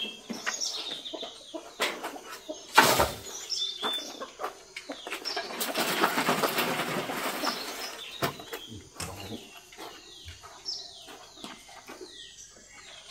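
Young chicks peeping in many short, high chirps that fall in pitch. There is a sharp knock about three seconds in, and a stretch of rustling around the middle.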